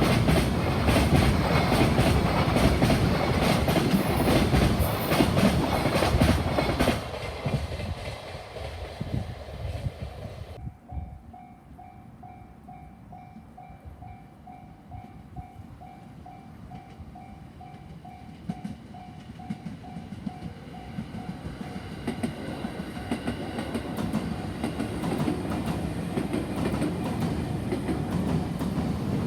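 A train passing close by, its wheels clattering over the rail joints, dies away over the first ten seconds. Then a level-crossing warning bell rings with a steady pulsing electronic tone, and another train's rumble grows louder toward the end as it approaches.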